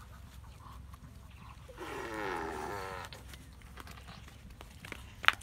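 A single drawn-out animal call about two seconds in, lasting about a second and wavering and falling in pitch. A sharp click comes near the end.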